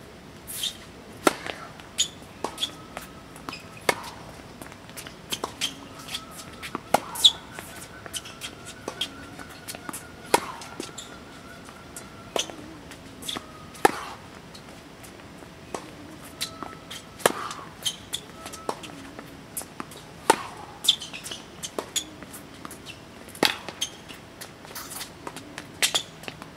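Tennis ball being served and rallied on a hard court: sharp pops of the ball off racket strings and bounces on the court surface, coming at irregular intervals over several points.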